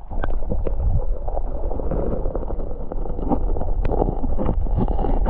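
Muffled rushing and gurgling of a river's current picked up by a camera held underwater, with scattered small clicks and knocks.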